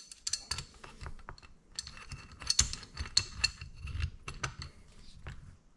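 Hand tools being handled: a steel adjustable wrench and a strap wrench clicking and clinking against a torque wrench's metal end cap. The sound is a run of irregular light clicks and clinks, some with a short metallic ring.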